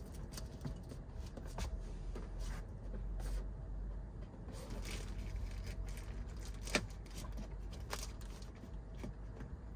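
Black plastic trash bag crinkling and rustling in scattered short crackles, with a couple of sharper clicks, as it is pushed into a car door's rubber weather strip. A steady low rumble runs underneath.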